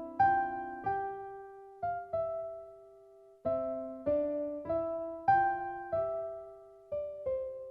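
Piano music: a slow melody of struck notes and chords, each left to ring and die away, with a short pause in the middle of the phrase.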